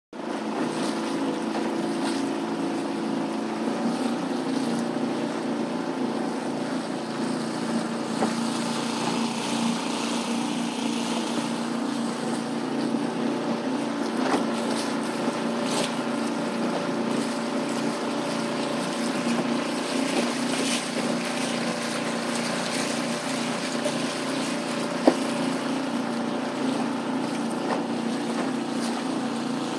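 Small 5 hp outboard motor running at a steady speed, pushing a small wooden boat along, with water hissing and splashing against the hull. One sharp knock comes near the end.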